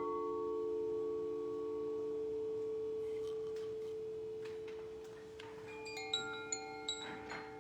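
A singing bowl struck once, its steady tone ringing on and slowly fading. Near the end, chimes tinkle with a quick run of bright notes at different pitches over the bowl's tone.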